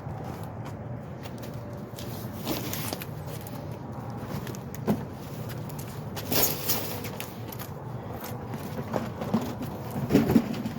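A car engine idling steadily, with scattered knocks and clatters of things being handled, the loudest cluster near the end.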